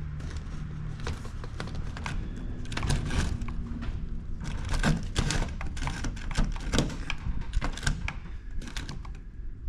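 Irregular clicks and knocks of hardware being handled: toggle brackets pushed through drilled holes and the floodlight's fittings and cord worked into place, a few sharper knocks near the middle.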